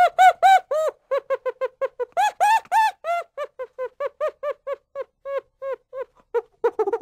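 Chimpanzee calling in a rapid series of short hoots, each rising and falling in pitch, about three to four a second. The calls grow louder and higher-pitched a couple of seconds in, then crowd together near the end.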